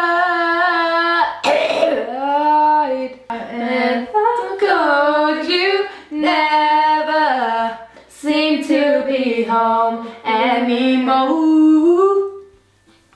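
A young woman singing unaccompanied, holding and sliding long notes with vibrato in phrase after phrase, then breaking off near the end.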